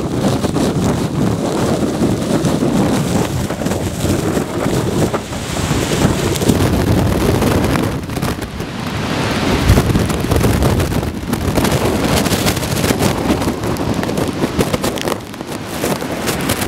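Hurricane wind gusting and rain driving down, with heavy wind buffeting on the microphone that rises and falls from gust to gust.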